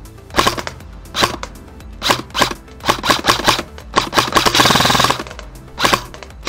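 VFC SCAR-H airsoft rifle firing: a string of single shots, then a short full-auto burst of under a second about four and a half seconds in, then two more single shots near the end.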